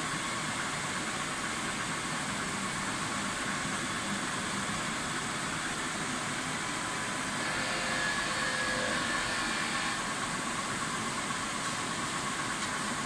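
DMG-DECKEL-MAHO DMU 80 T 5-axis machining centre running under power: a steady hum and hiss with a faint steady tone. A higher whine joins from about seven to ten seconds in.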